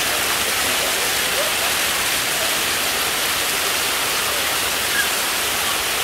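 Water of a waterfall rushing steadily over broad stepped rock terraces: an even, unbroken hiss.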